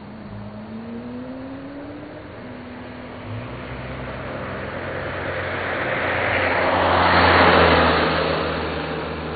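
A car driving past: its engine note rises in pitch in the first couple of seconds, then the tyre and engine noise swells to a peak about seven and a half seconds in and fades away.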